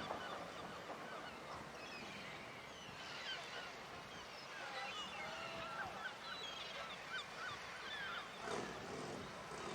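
A flock of birds calling, many short overlapping calls throughout, over a faint steady background hiss.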